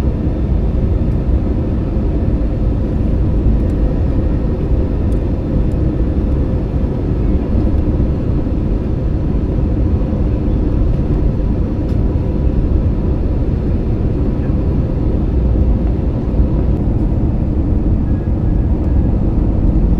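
Jet airliner cabin noise in flight: the steady low rumble of the engines and rushing air heard from inside the cabin, with a faint steady hum running through it.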